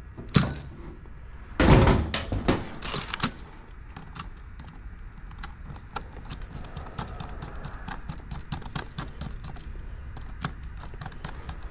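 Hand screwdriver working the terminal screws of an HVAC contactor: a long run of light, quick clicks and ticks. Near the start come a few louder knocks and clatter as the contactor is handled.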